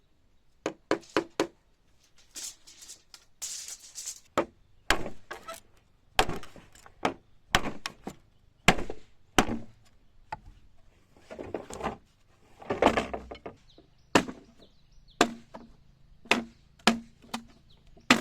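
Irregular chopping and knocking strikes, some in quick clusters of two or three, with bursts of rustling between them.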